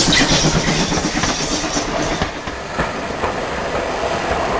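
Model trains running on a model railway layout, their wheels clattering along the track. About halfway through the sound changes and drops to a quieter running noise with faint ringing tones.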